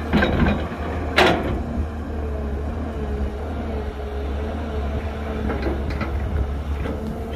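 Excavator at work: its diesel engine runs steadily under a wavering whine. Two sharp clanks come within the first second and a half, and a few lighter knocks come near the end.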